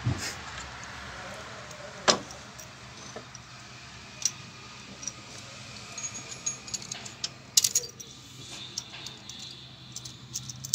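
Swift Dzire engine's steel timing chain clinking as it is handled and fitted over the sprockets, mixed with scattered sharp metallic clicks and knocks from the tool. One strong click comes about two seconds in, and a denser run of clicks comes about three-quarters of the way through.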